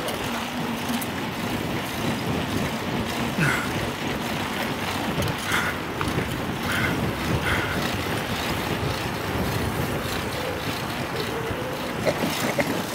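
Steady rush of wind over the microphone of a camera carried on a moving bicycle, riding along an asphalt road.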